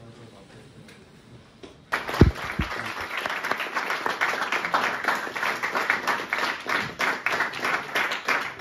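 A small group of people clapping, starting about two seconds in and carrying on steadily, with two dull low thumps as it begins.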